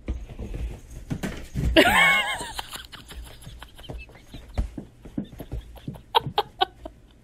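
A cat meows once, long and loud, about two seconds in, rising and then falling in pitch. Short scratchy clicks and knocks come throughout, and a quick run of short sounds follows near the end.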